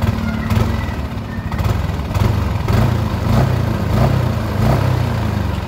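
Yamaha NMAX scooter's single-cylinder engine running, driving the rear wheel through the CVT, with no clicking from the CVT case. The earlier "cetok-cetok" clicking, blamed on play in the CVT box bearing, is gone now that a new, greased bearing is fitted.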